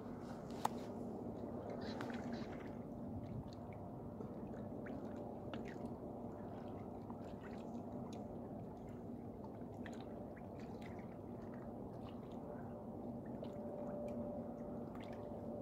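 Steady low outdoor background noise with a faint steady hum, scattered small ticks and one sharp click about half a second in.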